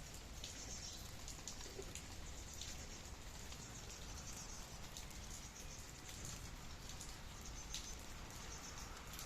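Rain falling steadily, with many separate drops heard as short ticks.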